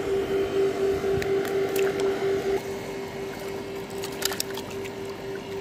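Water splashing and sloshing as a nylon mesh keep net holding fish is worked in shallow river water, with a cluster of splashes about four seconds in. A steady hum from a motor runs underneath.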